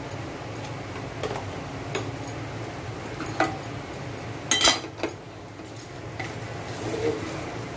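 Wooden spatula stirring a bitter gourd and coconut stir-fry in a pot, with scattered scrapes and knocks against the pot. The loudest clatter comes about four and a half seconds in, over a steady low hum.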